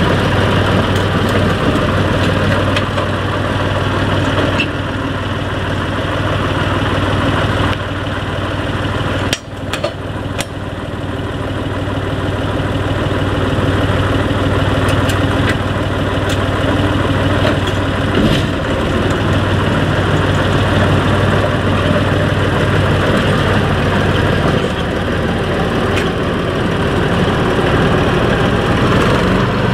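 Small narrow-gauge diesel shunting locomotive running steadily as it moves along the track, with a brief dip in the sound about nine seconds in.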